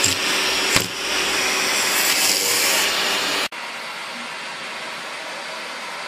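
Vacuum cleaner running with a steady rushing noise, with one knock just under a second in. It cuts off abruptly about three and a half seconds in, giving way to a fainter steady hiss.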